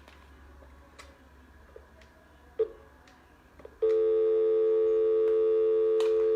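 A few faint clicks, then about four seconds in a loud, steady telephone line tone through a phone's speaker starts and holds without a break.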